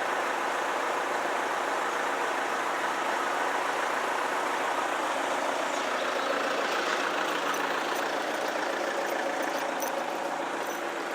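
Steady sound of road vehicle engines running with the level crossing barriers down, an even drone with no sudden events.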